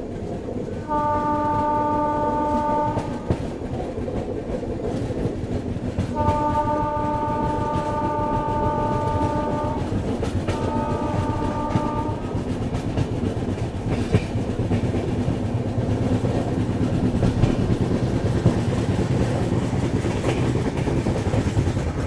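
Electric locomotive's horn sounding three times, a steady chord of tones: a blast of about two seconds, a longer one of about three and a half seconds, then a short one, over the continuous rumble and clatter of the passenger train's wheels on the rails.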